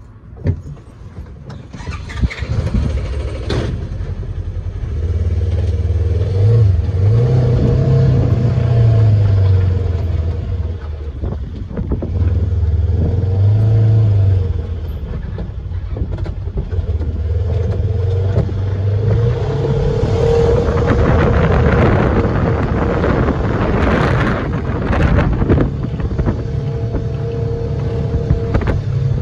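Polaris Ranger utility vehicle's engine running under way, its speed rising and falling repeatedly, with rushing driving noise.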